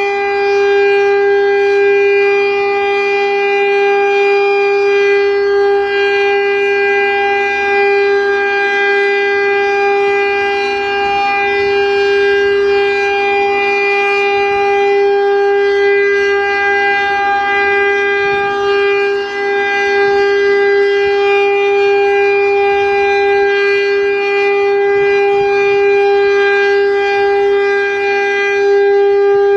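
Federal Signal STL-10 outdoor warning siren sounding its full-alert signal: one loud, continuous tone held at a steady pitch.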